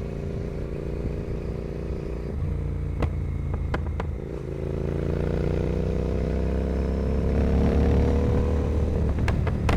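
Royal Enfield Continental GT 650's parallel-twin engine heard through a Carbox Racing carbon 2-into-1 exhaust while the bike is ridden. The engine note drops about two seconds in, a few sharp cracks follow, and then the pitch climbs steadily as the bike accelerates, with a quick run of cracks near the end.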